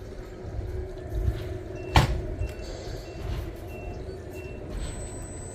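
1/14-scale RC model excavator working, its motor running with a steady hum over low rumbling. A sharp knock about two seconds in is the loudest sound, and a few short high beeps follow.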